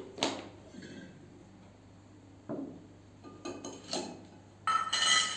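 Stainless-steel cups, bowls and spoons clinking and knocking as they are handled and set down, a few separate light knocks followed near the end by a louder clink that rings on briefly.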